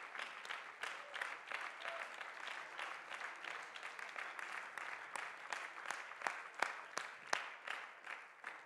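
Congregation applauding with hand claps, thinning near the end to a few louder scattered claps before dying away.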